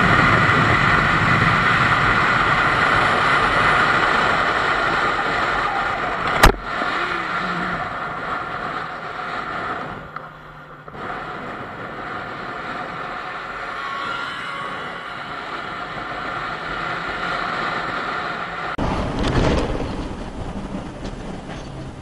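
Vehicles on the move: first a motorcycle at highway speed, with a loud steady rush of wind and engine and one sharp crack about six seconds in. Then quieter steady road and engine noise from a car on a highway.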